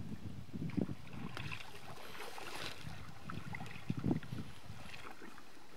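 A canoe moving on a river: water splashing and gurgling along the hull, with a few low thuds about a second in and again around four seconds.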